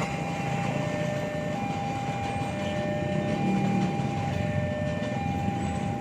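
Train running past, a steady rumble with a thin, steady whine over it that comes and goes.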